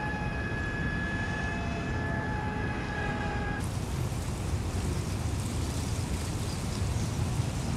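Steady low outdoor rumble with a high, steady machine whine over it; the whine cuts off abruptly about three and a half seconds in, leaving an even rumble and hiss.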